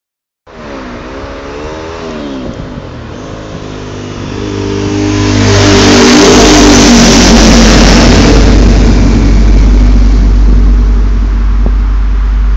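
Ducati 749 sport motorcycle's L-twin engine, fitted with a Termignoni exhaust, being revved up and down several times. It then accelerates past, loudest about halfway through. A deep low exhaust rumble lingers in the tunnel afterwards and fades slowly.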